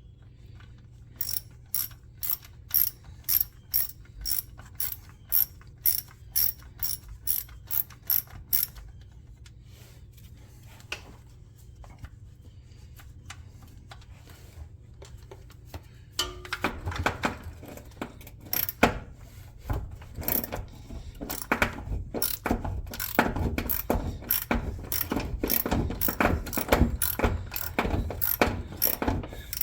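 Hand ratchet wrench clicking as a fastener is turned, at a steady rate of about two to three clicks a second. It pauses for several seconds, then clicks again faster and more irregularly, mixed with knocks of tools and parts.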